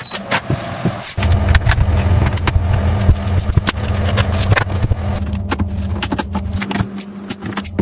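A motor running steadily with a low hum, starting about a second in and dropping away near the end, over many sharp clicks and knocks.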